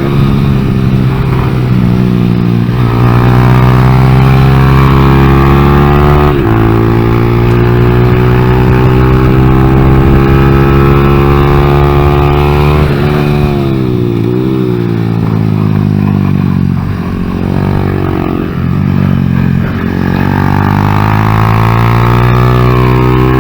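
Honda Grom's 125cc single-cylinder engine under hard throttle. The revs climb and fall, with sudden breaks in pitch about six and thirteen seconds in, then lower, wavering revs before climbing again near the end.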